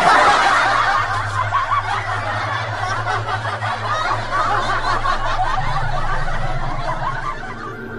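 Laugh track of many people laughing at once. It cuts in suddenly at the start and dies away near the end.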